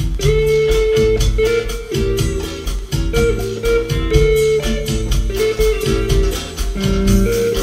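Stratocaster-style electric guitar playing a lead melody of long held notes, over a backing track with a steady drum beat and bass line.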